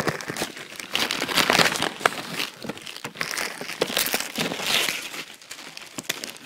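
Wrapping paper being torn open and crumpled by hand, a papery crinkling and crackling full of sharp little clicks that swells and fades in several spells.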